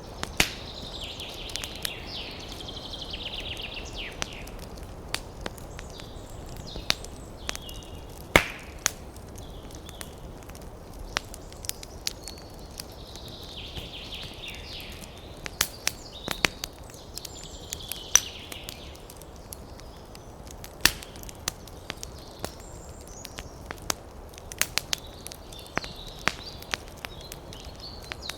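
Wood fire crackling: a steady low hiss with sharp, irregular pops and snaps, the loudest about eight seconds in. Patches of higher-pitched sound come and go over it.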